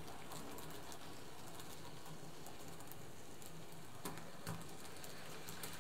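N-scale model diesel locomotive pulling a coach along the track, a faint steady running whir with a couple of light clicks about four seconds in.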